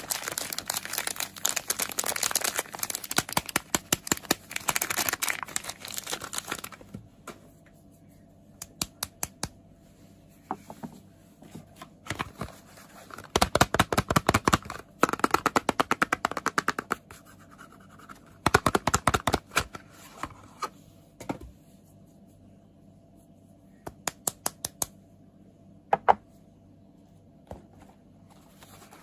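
Quick tapping and scratching on soap packaging. Bursts of rapid taps lasting a few seconds alternate with pauses and a few scattered taps.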